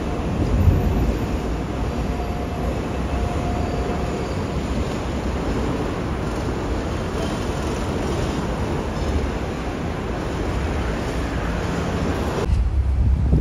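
Hong Kong double-decker tram rolling past on its street rails, over a steady street din. About a second before the end the sound cuts to wind buffeting the microphone.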